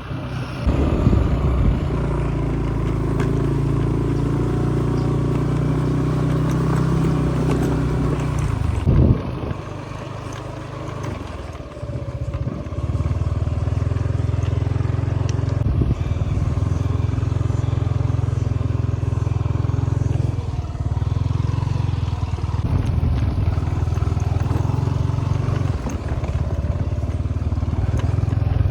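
A motor vehicle engine running steadily under way. It eases off about nine seconds in and picks up again about three seconds later.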